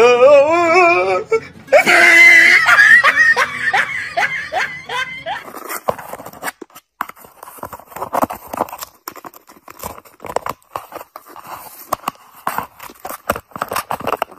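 A person laughing in high, wavering bursts, then, from about five seconds in, quieter light scratching and tapping.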